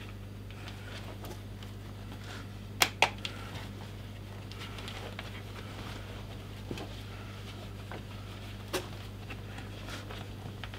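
Leather welding jacket being buttoned up by hand: faint rustling of the stiff leather and a few sharp clicks from the fastening, two close together about three seconds in and one more near nine seconds, over a steady low hum.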